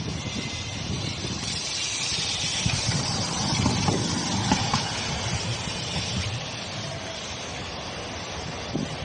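Tram passing close by: its running noise swells to a peak about four seconds in, with a few short knocks as it goes past, then eases off.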